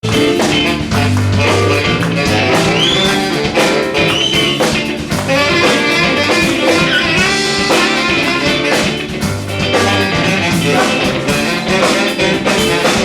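Instrumental opening of a song: a band with guitar, bass and drums playing to a steady beat, with a few bent notes on a high lead line.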